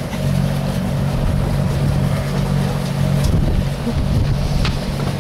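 Steady low machine hum from a boat's onboard motor, running evenly with no change in pitch.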